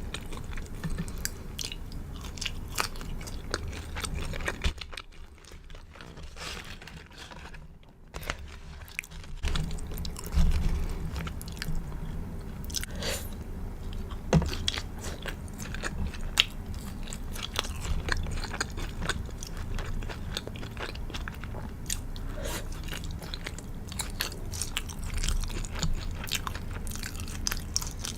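Close-up chewing and biting of a crispy fried chicken burger, the breaded coating crackling and crunching between the teeth, with a quieter lull about five to nine seconds in and a loud crunchy bite just after.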